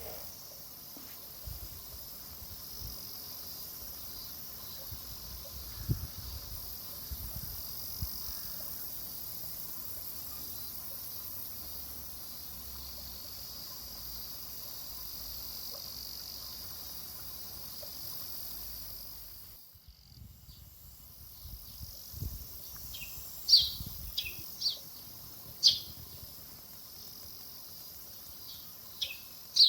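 Steady high-pitched drone of insects outdoors, with a few low thumps. After an abrupt break about two-thirds of the way through, a bird gives a series of short, sharp chirps.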